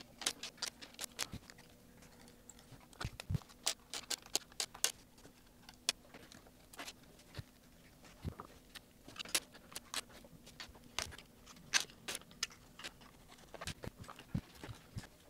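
Scattered small clicks, taps and light knocks of hands handling 3D-printed plastic robot-arm parts during disassembly, irregular and uneven in loudness. A faint steady hum runs underneath.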